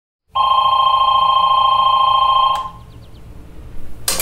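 Landline telephone ringing once for about two seconds, then cutting off. A faint low hum carries on after it, and a few sharp clicks come near the end as the answering machine picks up.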